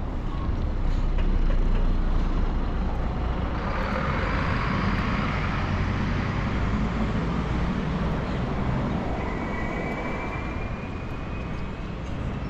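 Road traffic on a city street: motor vehicles passing close by, a steady rush of engine and tyre noise that swells over the first couple of seconds and again a few seconds in.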